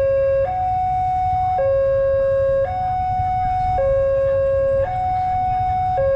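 Railway level-crossing warning alarm sounding two electronic tones, low and high, that take turns about once a second. It signals that a train is approaching and the crossing is closing.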